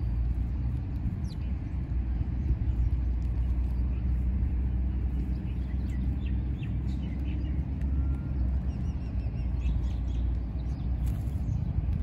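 Small birds chirping faintly in short scattered calls, more of them in the second half, over a steady low rumble.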